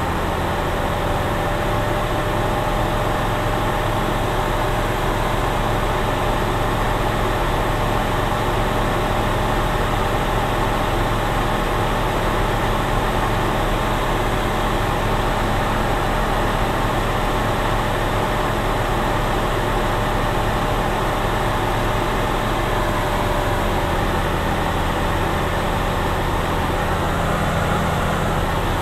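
Steady cabin drone of a single-engine propeller plane's piston engine and propeller in cruise descent, heard from inside the cockpit, even and unbroken with a faint steady hum.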